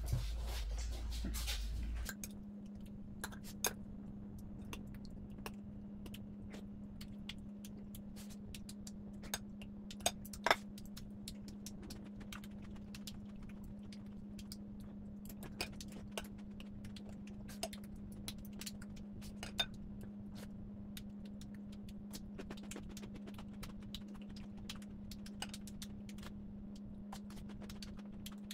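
Scattered light clicks and ticks of chopsticks and a spoon against bowls and plates during a meal, with a steady low hum underneath. A louder low rumble fills the first two seconds.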